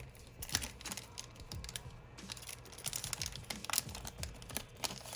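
Pokémon trading cards being handled and pulled from a booster pack, a run of irregular light clicks and taps.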